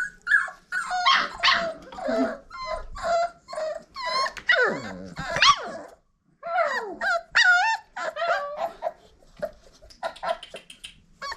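A litter of five-week-old red nose pit bull puppies yipping, whining and giving small barks as they play-fight. Many short high-pitched calls come one after another, with a few longer whines that fall in pitch around the middle and a brief pause about six seconds in.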